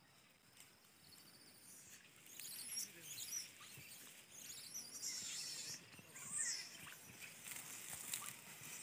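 Rustling and light pattering as a troop of gray langurs moves through dry grass, with scattered short, high chirps and squeaks. It grows louder about two seconds in.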